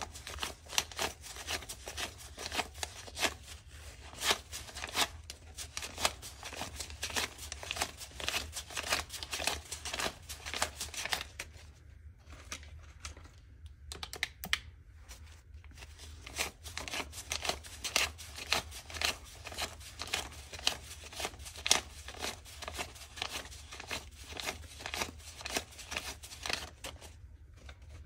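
Paper banknotes counted by hand: a rapid run of crisp rustles and snaps as bill after bill is flicked off the stack. Mixed in are the clicks of plastic calculator keys being pressed.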